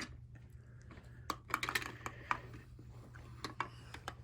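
Light, irregular clicks and clacks of a BRIO toy roller coaster's wooden track pieces and small cars being handled, with a quick cluster of taps about a second in and a few more near the end.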